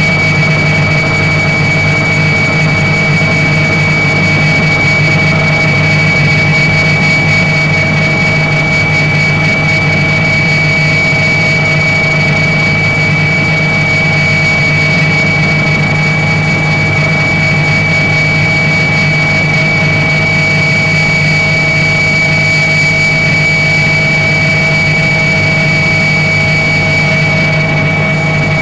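Helicopter engine and rotor noise heard from inside the cabin in flight: a loud, steady drone with a constant high whine and a low hum, unchanging throughout.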